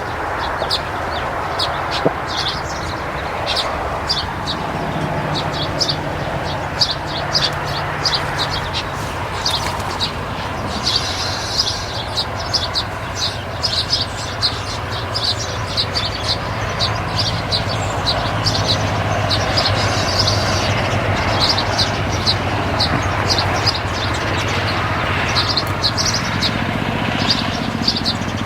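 Small birds chirping in short, rapid repeated notes, with a steady low engine-like hum underneath that grows a little louder in the second half.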